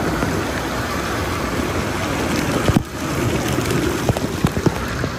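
Churning, splashing water-park pool water heard from right at the surface, a steady rain-like hiss of spray and chop. The level dips briefly a little under three seconds in, and scattered sharp splashes and drips tick through the second half.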